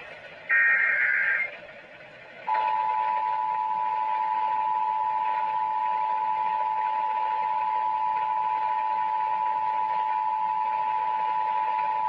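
Emergency Alert System tones from a radio speaker. About half a second in, a one-second burst of the warbling digital header data plays. Then, about 2.5 s in, the steady two-tone EAS attention signal starts and holds, announcing a tornado warning.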